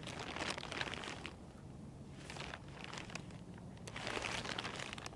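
Faint rustling and crackling handling noise, coming in uneven spells of quick small crackles.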